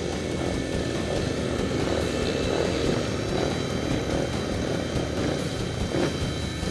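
Speedway bike's single-cylinder engine running steadily at low revs, heard from a camera on the bike.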